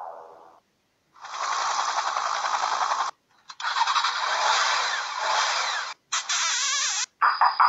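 Sound-effect clips from a phone sound-effects app, played one after another. A pitched tone fades out, then four noisy mechanical bursts follow, each starting and stopping abruptly.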